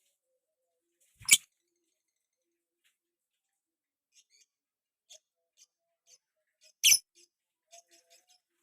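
Lovebird giving two loud, short, shrill squeaks about five and a half seconds apart, with soft scattered chirps in between.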